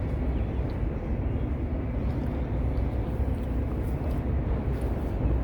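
Steady low rumble of outdoor background noise, with no distinct single event standing out.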